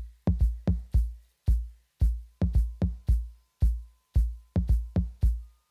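Electronic background music: a beat of deep bass-drum hits in a repeating rhythm.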